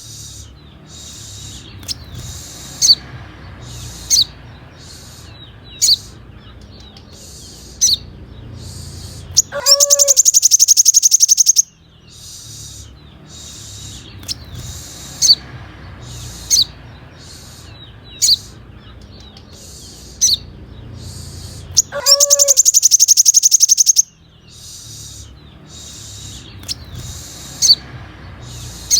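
Sunbird (kolibri manggar) song: sharp, high single chips every one to two seconds, and twice a loud, high buzzing trill lasting about two seconds, each opened by a short lower note. A low steady hum runs underneath.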